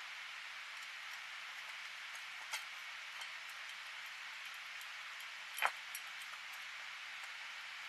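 Two cats eating from stainless steel bowls: a few light clicks, with one sharper clink about five and a half seconds in, over a steady hiss.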